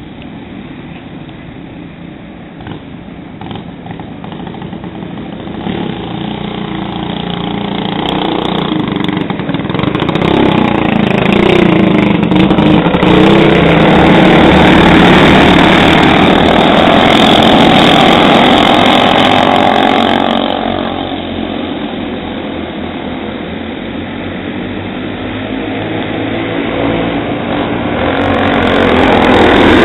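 A pack of dirt-track racing karts with small single-cylinder four-stroke clone engines running at race speed. They get louder as they pass close by around the middle, fade, and then build again near the end as they come round once more. Their pitch rises and falls as the drivers lift off and accelerate through the turns.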